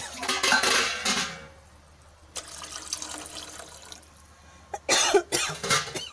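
Tamarind water poured into an aluminium pot of rasam, splashing in three bursts. The first and last bursts are loud; the middle one is weaker.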